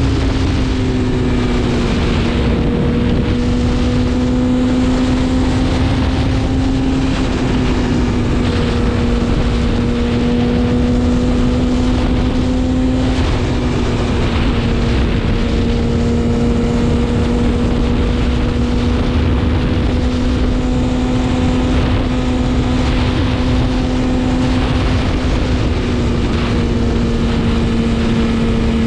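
BMW S1000RR's inline-four engine running at steady, fairly high revs while riding, its pitch holding nearly constant with a few small dips and steps, over wind noise on the microphone.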